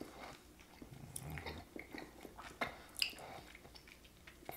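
Faint chewing of a very sticky, gummy black licorice candy: small wet clicks and smacks as the candy sticks to the teeth.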